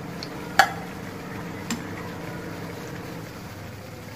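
Oil sizzling and bubbling steadily as breaded cutlets deep-fry in a wok. A sharp metal clink comes about half a second in and a lighter one just under two seconds in, from a steel slotted spoon knocking against the pan as the cutlets are lifted out.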